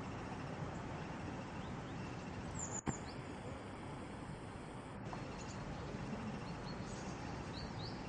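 Steady outdoor background noise with a few faint bird chirps, and one sharp click just under three seconds in.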